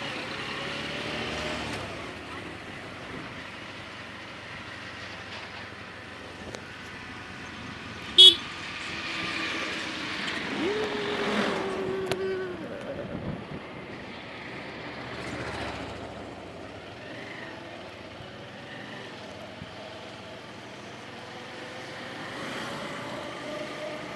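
Motorcycle riding along a road: engine running under steady wind and road noise. There is a short, sharp, loud sound about 8 seconds in, a steady tone held for about two seconds a little later, and the engine pitch rises slowly near the end.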